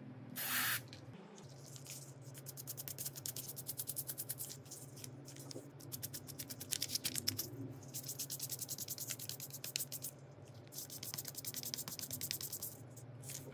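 A short spray hiss, then fast back-and-forth rubbing strokes on a small hard part, about ten a second, in three runs of a few seconds each with brief pauses between them.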